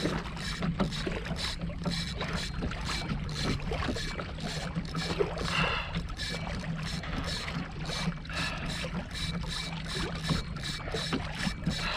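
Sea water lapping and slapping against a fishing kayak's hull, with wind noise.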